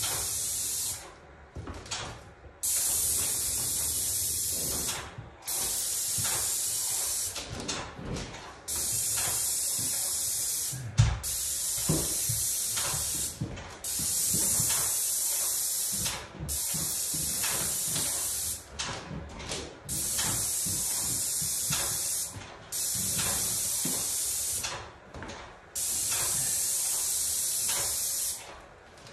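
Handheld paint spray gun hissing in about ten passes of roughly two seconds each, cutting off in short breaks between them as enamel is laid onto doors. A single knock about eleven seconds in.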